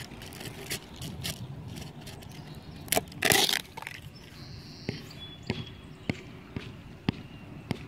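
Handling noise from a hand-held phone: a short rubbing scuff about three seconds in, then a run of sharp knocks about every half second.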